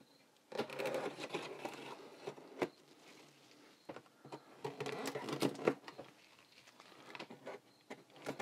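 Folding knife slitting tough clear packing tape along a cardboard box's seam while gloved hands press on the box. Scratchy rustling and crinkling come in uneven spells, with a sharp click about two and a half seconds in.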